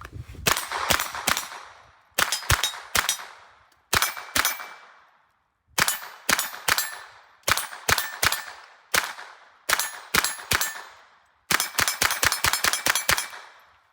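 AR-15 pistol fitted with a CMMG .22 LR conversion kit firing rapid strings of shots, several a second, with short pauses between strings; the gun is cycling reliably. A short metallic ring follows some of the shots.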